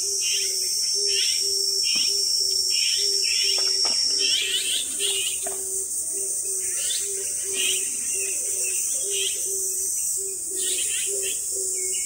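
Outdoor nature ambience: a steady, high-pitched chorus of insects, with birds chirping repeatedly over it. Underneath, a low note repeats evenly about two to three times a second.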